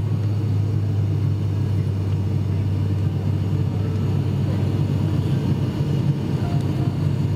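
Steady, loud drone of an ATR-72's turboprop engines and propellers heard inside the cabin, with a low hum underneath. The aircraft is in the climb after takeoff.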